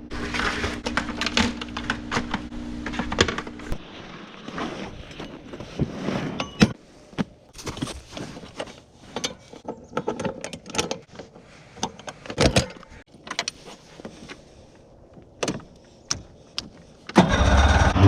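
Irregular clicks, clinks and knocks of gear being handled. About a second before the end, a vehicle engine starts and runs steadily at idle.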